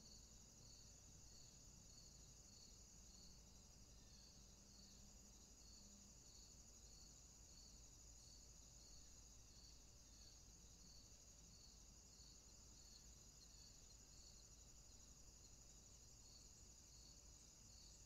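Faint chorus of insects: a continuous high-pitched trill, with a lower chirping call repeated about three times every two seconds.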